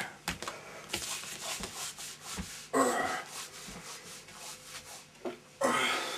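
Cloth rustling and rubbing as a shirt is handled on a door hook, with scattered light knocks and steps. There are two louder rough bursts, about three seconds in and near the end.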